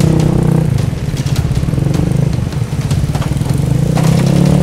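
A Vespa scooter's engine running steadily on the move, a low even hum with a few sharp clicks.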